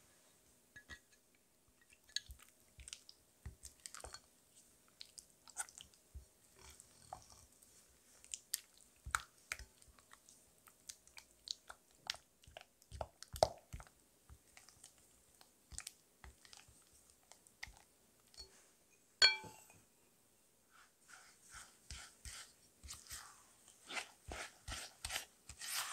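Rubber spatula working cream cheese and yogurt in a glass bowl: irregular soft wet smacks and scrapes with light taps on the glass. One sharper clink comes about three quarters of the way in, then the strokes run quicker and more evenly near the end.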